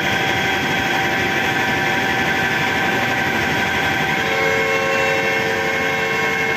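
Steady, loud industrial machinery noise with several steady whining tones over a dense hum; another tone joins a little past four seconds in.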